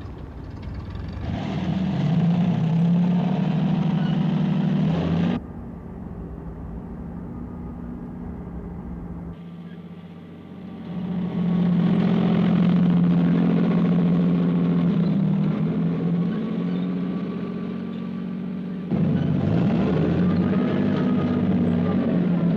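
Vehicle engine running with a steady drone. The sound changes abruptly several times, quieter between about 5 and 11 seconds in, then louder again.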